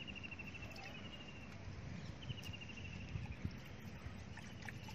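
A high trilling call, a fast run of clicks that falls slightly in pitch and lasts about a second, heard three times over a steady low outdoor rumble.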